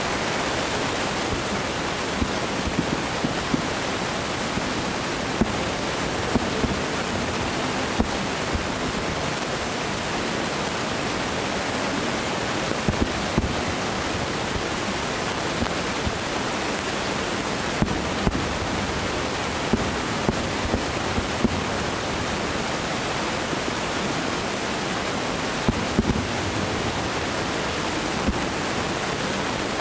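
Distant aerial fireworks shells bursting as scattered sharp bangs, some in quick clusters, over a steady rushing noise.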